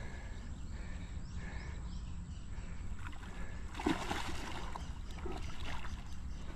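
A large hooked fish thrashing at the surface close to the bank, with one loud splash about four seconds in, over a steady low rumble.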